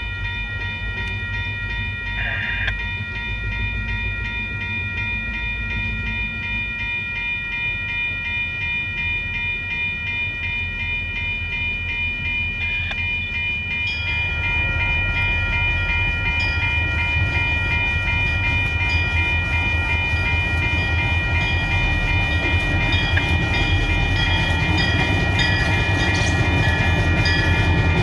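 Railroad crossing bell ringing steadily as two CP diesel locomotives approach. Their low engine rumble grows louder from about halfway through.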